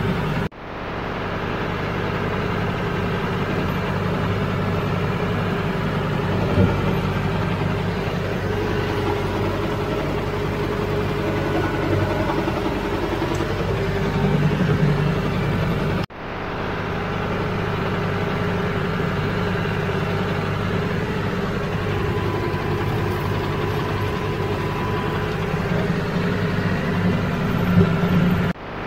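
Utility tractor's diesel engine running steadily as it drives along a dirt track. The drone breaks off abruptly twice and picks straight back up.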